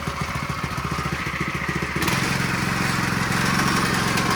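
Harbor Freight Predator 212 single-cylinder four-stroke engine running on its first start. About two seconds in it picks up speed to a higher, steadier and slightly louder note as the throttle is opened.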